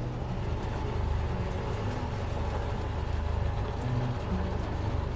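A boat engine running steadily at low speed, a continuous low rumble.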